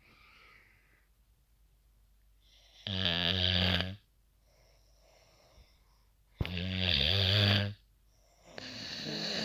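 A person snoring loudly: three long snores, each about a second long and roughly three seconds apart, with faint breathing between. The loud snoring is put down to tramadol.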